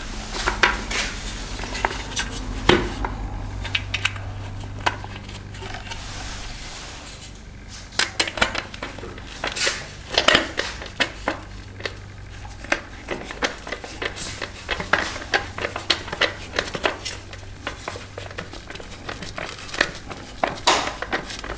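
Hand screwdriver driving a Phillips-head screw into the end of a metal roof-rack bar: irregular small metallic clicks and scrapes of the driver and the bar being handled, coming thicker in the second half, over a low steady hum.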